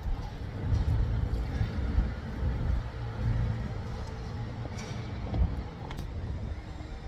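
Low, uneven outdoor rumble. About five seconds in come a few sharp clicks, a little over half a second apart, like stiletto high heels stepping on stone paving.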